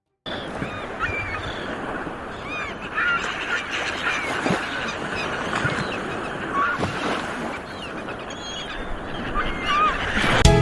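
Many short bird calls, scattered throughout, over a steady rushing background like wind or water.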